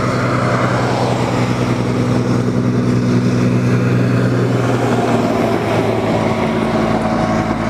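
Vehicle engine idling with a steady low hum; its pitch shifts slightly about five seconds in.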